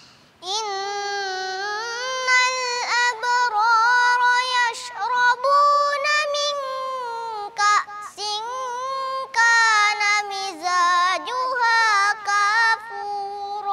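A seven-year-old boy reciting the Quran from memory in a melodic chanted style (tilawah). After a brief pause he enters about half a second in, then holds long notes with ornamented turns and short breaks between phrases.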